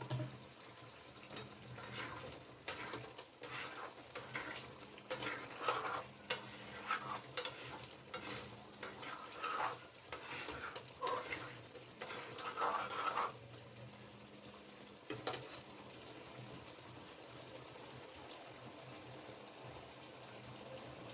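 A spatula stirring and scraping chicken pieces through masala in a frying pan, with a steady sizzle underneath: the meat being fried down for chicken kosha. The scraping comes in quick irregular strokes for about the first thirteen seconds, with one more a couple of seconds later, and then only the sizzle goes on.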